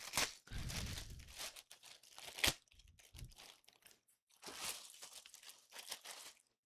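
Packaging being crinkled and torn open by hand as a new tool bag is unwrapped, in irregular rustling bursts, with one sharp click about two and a half seconds in.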